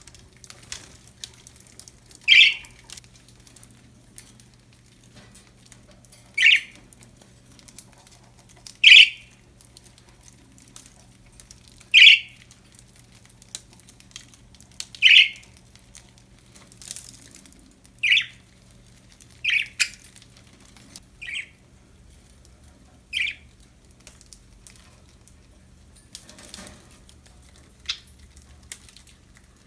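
Budgerigar giving about ten short, sharp contact calls, a few seconds apart, with faint ticks and rustles between them.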